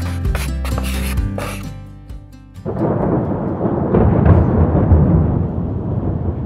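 Background music fades out about two seconds in. After a brief lull a loud, rough rumbling noise starts and carries on steadily.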